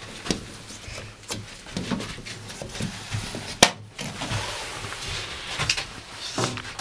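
Scattered knocks and clicks of hands handling the window frames and latch inside an elevated box hunting blind, with one sharper knock about three and a half seconds in.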